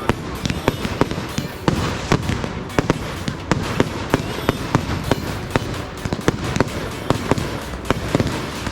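Fireworks going off: a rapid, irregular series of sharp bangs and cracks, several a second, over a steady rumbling background.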